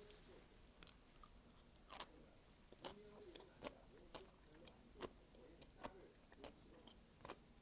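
Quiet, close-up chewing of a mouthful of mala tang: soft mouth clicks and bites about every half second to second, with a brief hiss right at the start.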